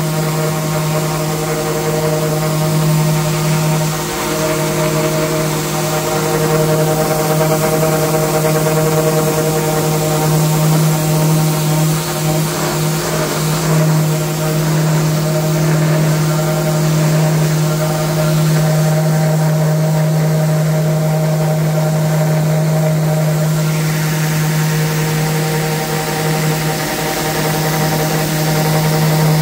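Random orbital sander running steadily with a constant motor hum, its 80-grit pad sanding across painted MDF.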